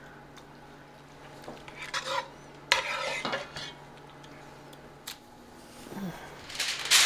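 Serving spoons scraping and clinking against a pot and a foil pan as spaghetti is spooned out: a few scattered clicks and scrapes over a faint steady hum. Near the end, a louder crinkling of aluminium foil begins.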